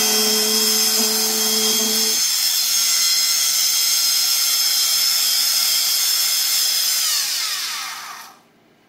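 A repaired 40-volt brushed DC motor from a Lynxx pole saw running free on a bench power supply after a broken brush was fixed, with a steady high whine. A lower hum drops out about two seconds in, and near the end the motor winds down, its pitch falling over about a second as the power is cut.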